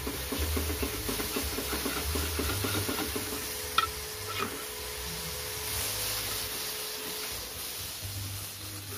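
Margarine sizzling in a small frying pan while a metal spatula scrapes and spreads it around the pan in quick strokes, with one sharp tap of the spatula on the pan a little under four seconds in.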